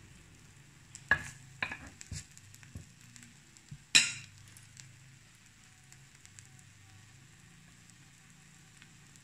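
Takoyaki batter sizzling faintly in an electric takoyaki pan, with a few sharp knocks of a metal spoon about a second in and one louder knock near four seconds in.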